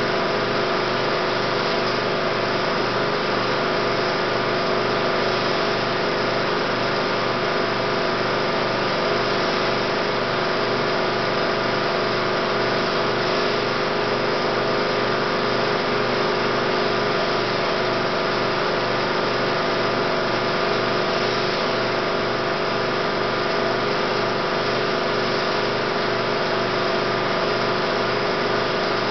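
A 16mm film projector running: a steady, unchanging mechanical whir with several held tones.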